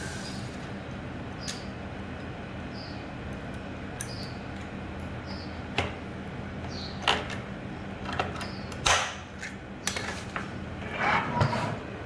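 Irregular light knocks and clicks, such as parts and tools being handled during cabinet work, over a steady low hum; the knocks begin about halfway through and come several times, the last ones the loudest.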